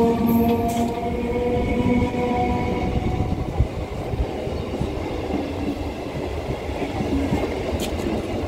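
Passenger train coaches rolling past at close range, the wheels rumbling and clattering on the rails. A steady humming tone over the first couple of seconds fades away.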